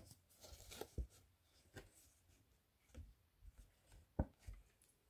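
Faint handling sounds of card stock being pressed flat by hand, so a freshly glued base sets straight: soft rustles and scattered light taps, the loudest a short knock about four seconds in.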